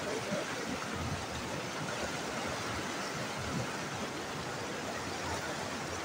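A fast mountain stream running high and white over rocks: a steady, dense rush of water.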